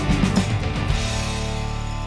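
Closing background music. A rhythmic passage ends about halfway through on one chord that is held and left ringing.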